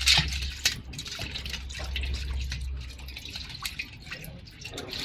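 Liquid dripping and trickling, with scattered small clicks and taps of metal parts. A low hum underneath stops about three seconds in.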